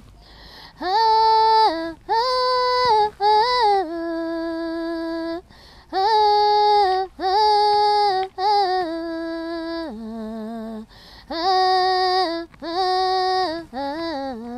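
A woman singing unaccompanied, a batuku song in Cape Verdean Creole: held, steady notes in short phrases with brief breaks between them.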